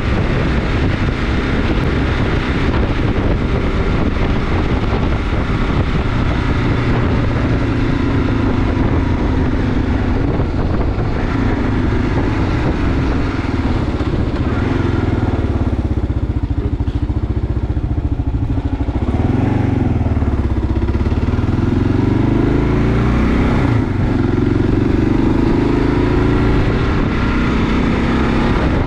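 Kawasaki KLR 650's single-cylinder engine running while riding, with wind noise on the microphone. Its pitch falls and rises several times past the middle of the stretch.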